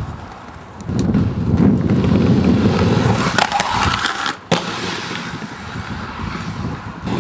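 Aggressive inline skates rolling hard on concrete paving, then grinding along a concrete ledge and landing with one sharp clack about four and a half seconds in. Quieter rolling follows.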